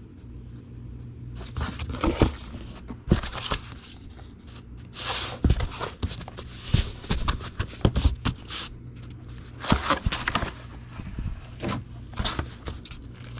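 Thick cardboard folding box being folded and creased on a template board: irregular knocks, taps and scrapes of cardboard against a hard surface, over a steady low hum.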